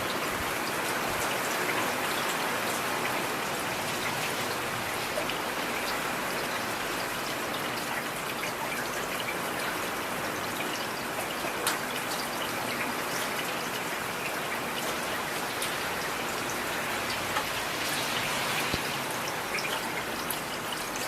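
Heavy rain falling steadily, a dense even hiss with scattered sharper drop impacts.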